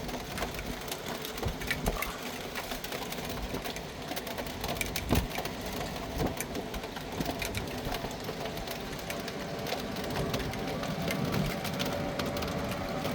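Steady rain falling, with many sharp drops ticking close to the microphone.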